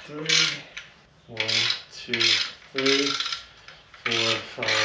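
Hand ratchet clicking in a run of short back-and-forth strokes, about six in a row, spinning out the already loosened bolts of a clutch pressure plate on an LS1 V8.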